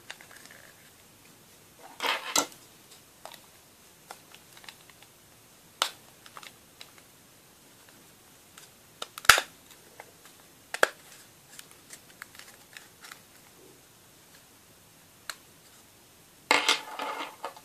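Hard plastic parts of a Ford Fiesta Mk6 dashboard air vent clicking, rattling and scraping as they are handled and worked by hand. There is one sharp click a little past nine seconds, and a short run of rattling near the end.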